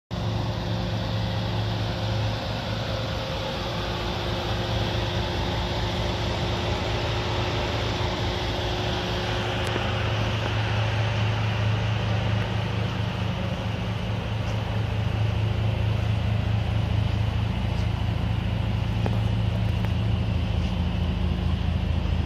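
Bentley Continental Supersports' twin-turbo W12 engine idling steadily, getting slightly louder in the second half.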